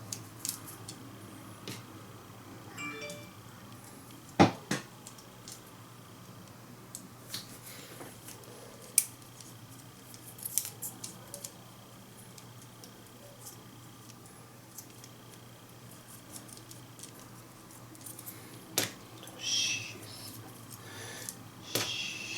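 Scattered small clicks and taps of the opened TV remote's plastic parts being handled, with the sharpest click about four and a half seconds in and a brief scraping rustle near the end.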